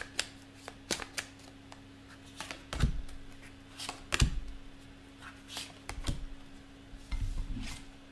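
A deck of oracle cards shuffled by hand and a card drawn: a string of sharp card snaps and flicks, with a few dull knocks about three and four seconds in and again near the end.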